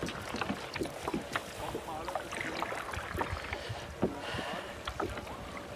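Water splashing and lapping around kayaks, with the irregular small splashes of paddles dipping into the lake.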